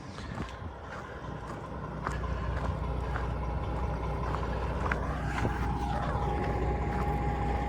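Heavy vehicle engine running with a low, steady rumble that grows louder from about two seconds in, with a steady whine joining it over the last couple of seconds.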